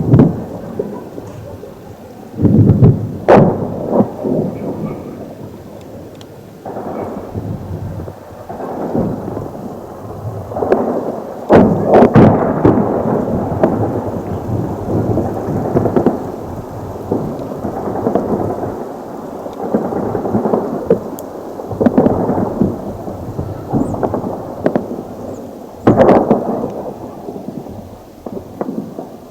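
Rolling rumble of ongoing combat, explosions and gunfire echoing without pause, with sharp loud blasts about three seconds in, around twelve seconds in, and near the end.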